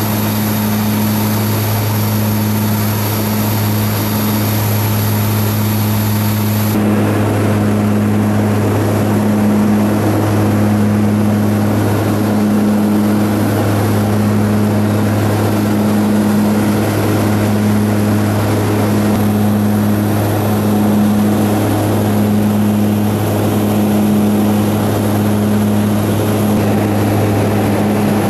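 Propeller aircraft engines droning steadily, heard inside the cabin: a deep, even hum with a slow pulsing beat. The sound turns duller about seven seconds in.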